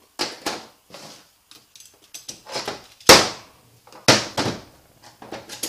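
Metal clutch parts from a 09A automatic transmission clattering and knocking as clutch plates and a clutch drum are handled and set down on the workbench. There is a string of sharp knocks, the two loudest about three and four seconds in.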